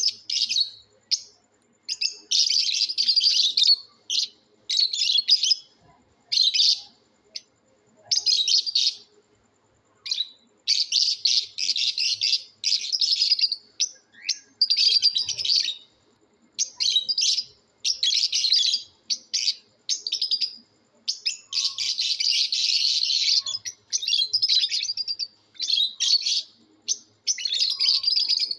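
Lovebirds chattering in rapid, high-pitched bouts of a second or two each, with short pauses between.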